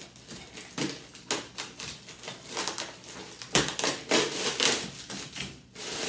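Plastic packing wrap crinkling and rustling as hands dig into a cardboard box and pull wrapped parts out, in irregular crackles that are loudest about three and a half seconds in.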